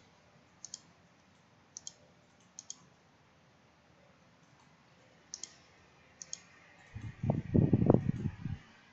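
Computer mouse clicks, mostly quick pairs, a few seconds apart. Near the end comes a louder, low sound lasting about a second and a half.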